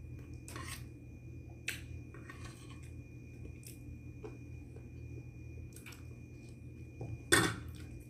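Small eating and handling sounds: a metal spoon clinking and scraping rice on a plate and a plastic bag crinkling, in short scattered bursts over a steady low hum. The loudest is a short sharp burst near the end.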